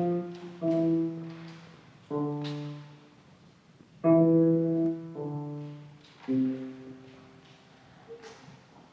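Piano played slowly: two-note chords struck one at a time, each left to ring and fade, about a second apart, with a pause of about two seconds near the end.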